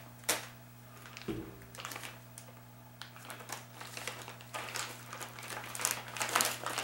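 Paper and plastic packaging rustling and crinkling, with irregular light clicks and taps, as a manual and small parts are handled out of an RC crawler's box. A faint steady low hum runs underneath.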